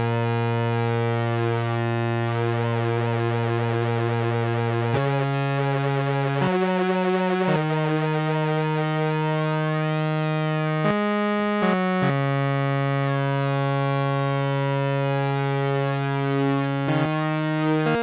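Synthesizer played through an Earthquaker Devices Pyramids flanger pedal: long held notes that change pitch every second or few, with the flange sweeping slowly up and down through the tone.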